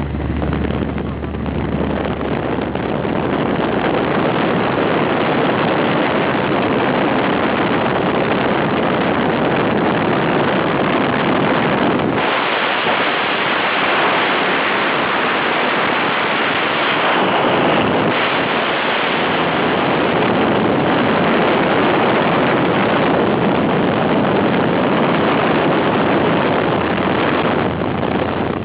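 Loud steady rushing of wind and sea surf, with wind buffeting the microphone. The sound changes abruptly about twelve seconds in.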